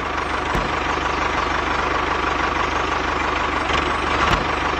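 Tractor engine running steadily with an even low throb.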